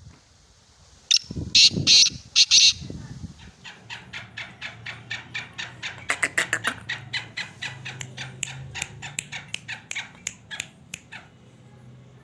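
Black francolin calling: four loud, harsh notes in quick succession, followed by a long run of fast, fainter clicking notes, several a second, that die away near the end.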